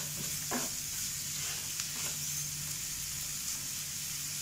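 Onion-tomato masala sizzling steadily in a non-stick kadai while a spatula stirs it, scraping the pan a few times.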